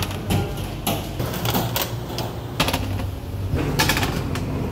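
Bakery workroom clatter: irregular clicks and knocks, as of metal baking trays and equipment, over a steady low machine hum.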